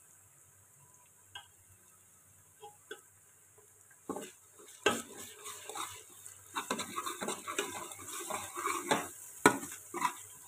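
Garlic, ginger and red chilli paste frying in hot oil and onions in a pressure cooker. Light clicks come first, then sizzling starts about four seconds in as a metal spoon stirs the paste, scraping and clinking against the pot.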